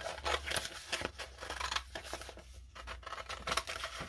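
Metal scissors snipping through a plastic-backed decor transfer sheet, a run of irregular cuts.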